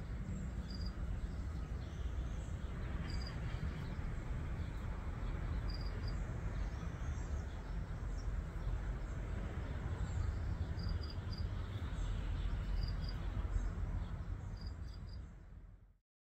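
Outdoor garden ambience: a steady low rumble with short high chirps, often in pairs, every few seconds; it fades out near the end.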